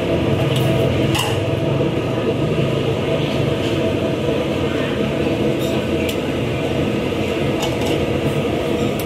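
A steady low mechanical rumble with a constant hum, with a few short light clinks of metal bowls and utensils here and there.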